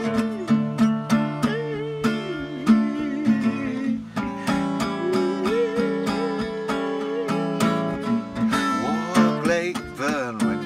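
Acoustic guitar strummed in a steady rhythm, with a man's voice singing long, wavering held notes over it without clear words.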